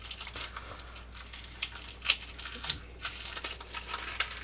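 Crinkling rustle and scattered small clicks of something being handled, with one sharper click about two seconds in.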